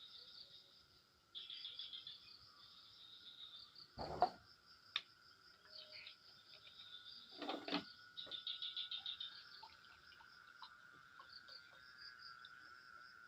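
Night insects such as crickets trilling steadily in a high, pulsing chorus, with a couple of short knocks about four and seven and a half seconds in.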